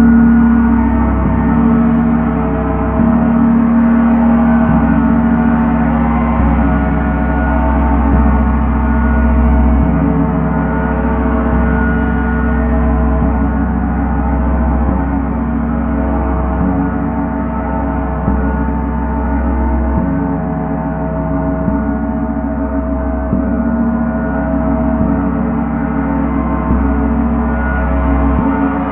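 Ambient drone soundtrack of sustained, gong-like ringing tones over a deep low hum, holding steady with only slight shifts every few seconds.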